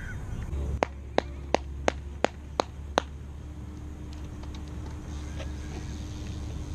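Seven sharp clacks in an even rhythm, a little under three a second, over a steady low rumble.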